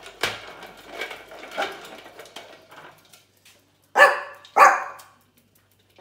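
A small dog barks twice in quick succession, sharp and loud, about four seconds in. Before that, a plastic hamster exercise ball rolls and rattles over the ceramic floor tiles.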